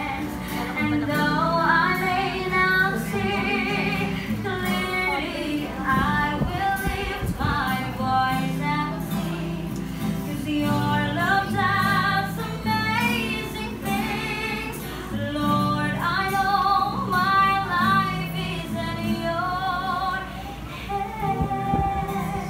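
A woman singing a slow song, with held, gliding notes, to guitar accompaniment.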